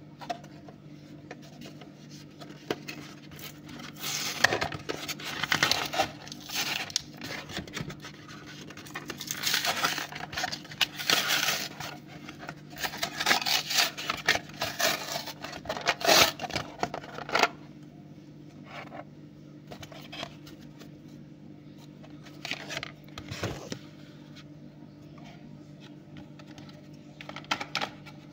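A plastic blister pack being torn open from its cardboard backing by hand: crinkling plastic and tearing card in dense bursts from about four seconds in until past the halfway point, then a few scattered clicks and taps of handling.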